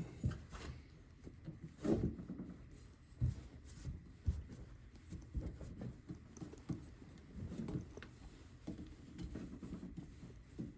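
Rubber stopper, slick with soapy water, being worked by hand into a center stand: irregular rubbing and small knocks of handling.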